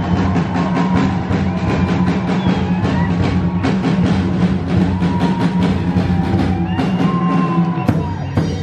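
Music with a steady, driving drum beat over a sustained low drone.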